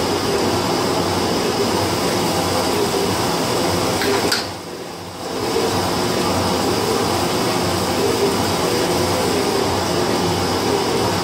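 Metal shaper running, its ram stroking back and forth as the cutter is touched off on the workpiece before the first cut. About four seconds in there is a click, and the machine noise drops for about a second before coming back.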